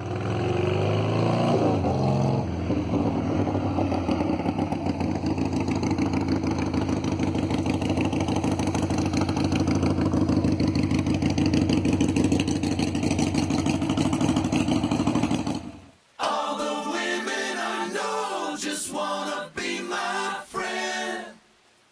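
A vehicle engine revs briefly and then idles steadily. Near the end it cuts off suddenly and a different, choppier sound follows.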